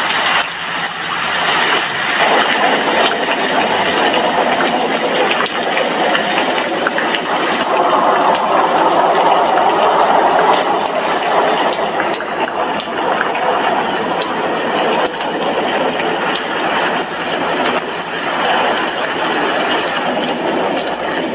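Steady heavy rain, a dense hiss full of small drop impacts, swelling louder for a few seconds around the middle.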